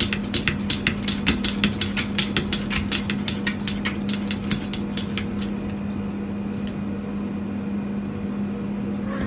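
A cat's claws tapping against a door's glass panel: quick sharp taps, about three or four a second, that stop about five and a half seconds in. A steady low hum runs underneath.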